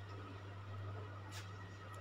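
Quiet room tone under a steady low hum, with one brief faint rustle about one and a half seconds in.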